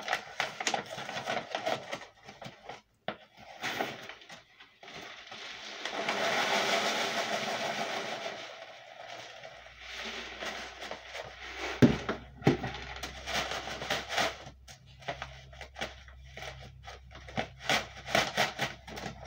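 A Mylar bag crinkles and rustles as it is handled. About six seconds in, freeze-dried food is poured from a plastic tub into the bag, making a rushing hiss for a few seconds. A sharp knock comes near the middle, and a low steady hum starts about halfway through.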